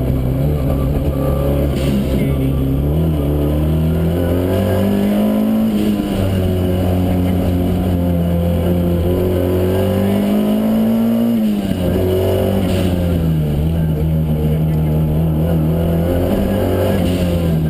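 Alfa Romeo Alfetta Turbodelta Group 4 rally car's turbocharged four-cylinder engine, heard from inside the cabin, revving hard as the car is driven. Its pitch climbs and falls several times and drops sharply about twelve seconds in.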